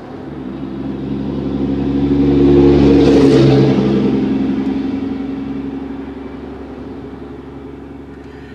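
A motor vehicle passing by: its engine and road noise swell to a peak about three seconds in, then fade slowly away.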